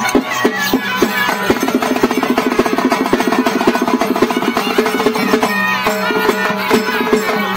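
Traditional Indian folk music: fast, steady drumming with a melody line playing over it.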